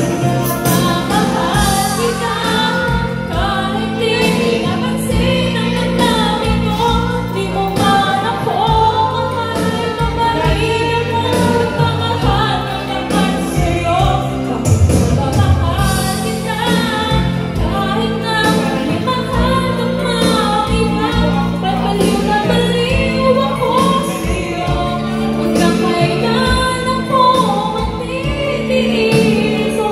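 Female voices singing into microphones over instrumental music with a steady beat.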